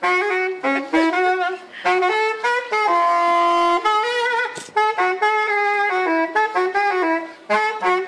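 Saxophone playing a melody of short, changing notes, with one longer held note about three seconds in.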